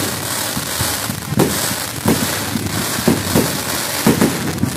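Aerial fireworks bursting overhead: a quick run of bangs, about two a second, over steady crackling.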